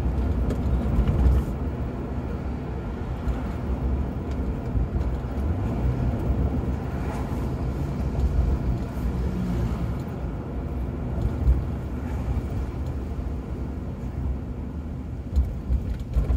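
Steady road noise inside a Ford Crown Victoria cruising at city speed: the low rumble of its 4.6-litre V8 and the tyres on wet pavement, with a few brief thumps from bumps in the road.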